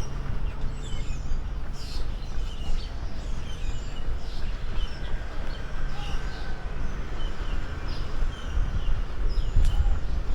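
Birds chirping: many short, scattered chirps over a steady low outdoor rumble.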